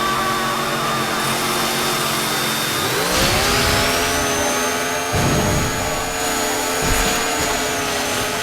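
Chainsaw engine sound effect running steadily, then revving up about three seconds in and holding at the higher pitch, with a couple of low thuds later on.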